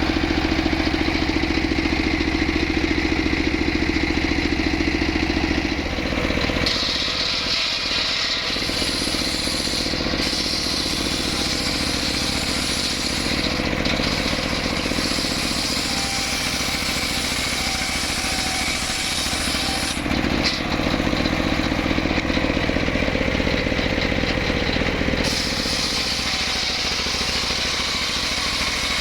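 Stihl MS381 two-stroke chainsaw running hard and cutting wood. Its sound shifts a few times between a heavier low note and a brighter, harsher sound as the chain bites into and eases off the log.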